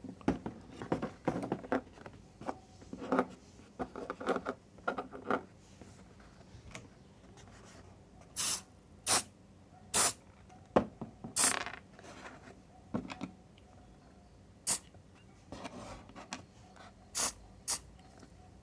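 Short hisses from an aerosol can of contact cleaner with oil, sprayed in brief puffs onto keyboard switches: about six puffs in the second half. Before them come a few seconds of light handling clatter and rustling.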